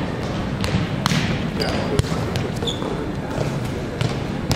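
A volleyball being hit and passed in a gym drill: a few sharp slaps of hand and forearm on the ball, the clearest about two seconds in and near the end, over a steady murmur of distant voices in the hall.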